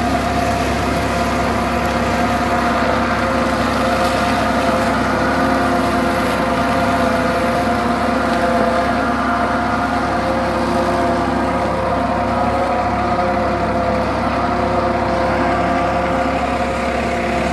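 Solis tractor's diesel engine running steadily under load while driving a PTO-powered mulcher that shreds dry crop stubble, with a steady hum.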